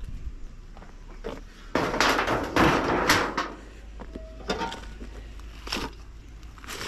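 Corrugated tin roofing sheets scraping and clattering as they are dragged off a beehive, loudest in the first half, then a few short puffs from a bee smoker's bellows.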